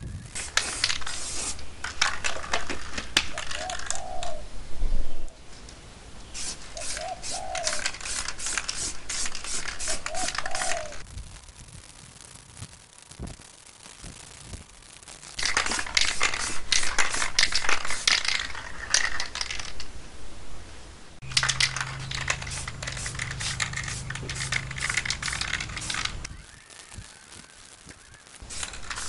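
Metal parts clinking and rattling as they are handled, in four bursts of a few seconds each with short pauses between, and a steady low hum under the last burst.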